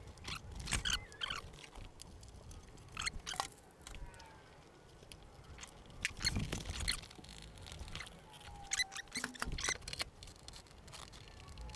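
Scattered light clicks, taps and rubbing as a motorcycle seat is set back in place and checked for fit, with a few faint short squeaks.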